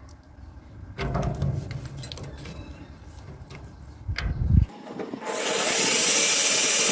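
Rubbing and scraping at the gate's toothed rack, then a cordless drill-driver running steadily for the last second and a half or so, driving a screw into the rack's mounting bracket.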